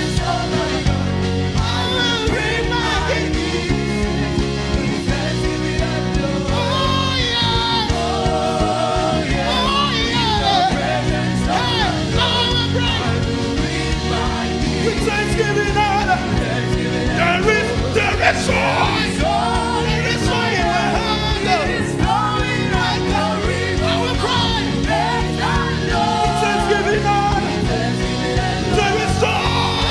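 Gospel worship music: singing over a steady instrumental accompaniment.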